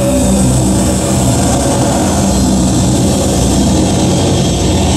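Loud, dense electronic noise drone played live: a steady low rumble with several held low tones and a hiss spread over the top, without a beat.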